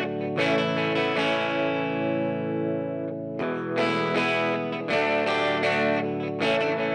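Background music: electric guitar with effects, chords struck and left ringing.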